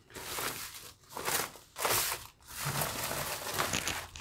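White plastic sheet crinkling and rustling in repeated strokes as hands press and knead hot steamed wheat-flour papad dough (khichu) through it.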